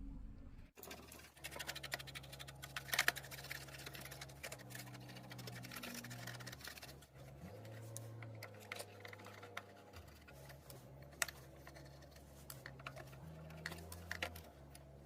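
Irregular small clicks, taps and scratches of hands handling and working on the parts of a cassette player, over faint low sustained tones that shift every few seconds.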